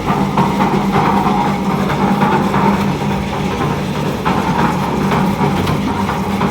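A 1-bag hydraulic concrete mixer driven by a 5 hp three-phase electric motor, running with a steady machine drone.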